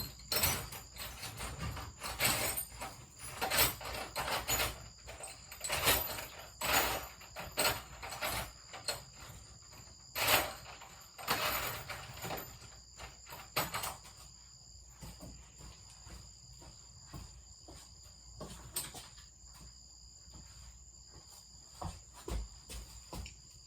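Irregular knocks, clicks and rattles of hard objects being handled, close together for the first dozen seconds or so, then fewer and fainter.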